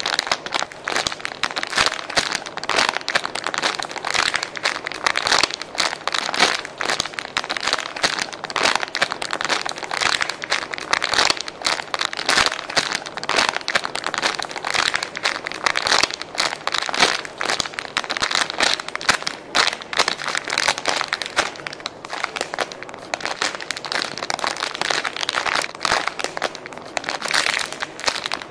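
Clear plastic packaging bag crinkling continuously as a strawberry squishy toy is squeezed inside it, with dense, irregular crackling throughout.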